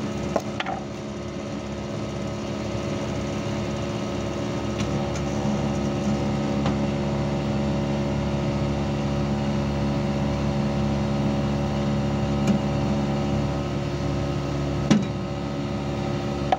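Panasonic 1.5-ton inverter air conditioner's outdoor unit running with a steady hum and vibration noise, broken by a few short knocks, the clearest about fifteen seconds in. The abnormal vibration sound is from the compressor, which the technician puts down to loose outer-casing screws and a dirty, clogged condenser.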